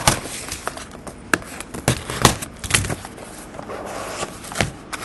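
A cardboard trading-card box being handled and opened, with scissors worked at its seal: about half a dozen sharp clicks and knocks, with a low rustle between them.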